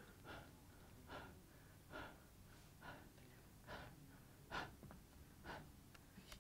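A man's faint, short breaths, about one a second in a steady rhythm, growing louder toward the end.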